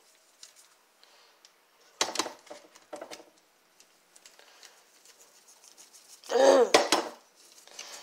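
Kitchen clatter of a spoon and a seasoning container against a slow-cooker crock: a few short knocks about two and three seconds in, then a louder scraping clatter about six and a half seconds in.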